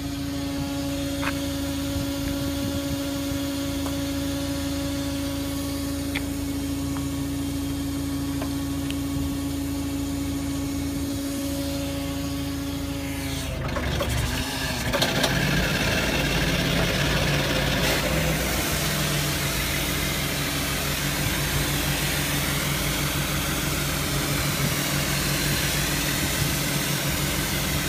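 Iveco Daily 50C15's diesel engine running steadily, driving the Whale jetting unit's high-pressure pump through its PTO. About halfway through the engine note changes and a steady hiss of the 200-bar water jet from the lance joins it.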